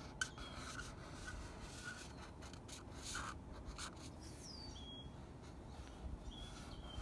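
Felt-tip Sharpie marker rubbing across paper in several short strokes while wavy lines are drawn. A bird chirps a few times faintly from about the middle on.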